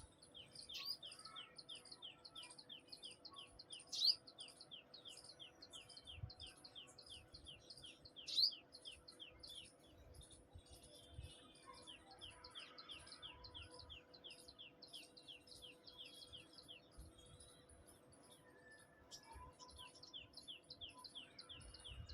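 Sunbird calling: a fast run of short, high, downward-sliding notes, about five a second, with a short break around the middle and two louder sharp chirps, about four and eight seconds in. A faint steady hum lies underneath.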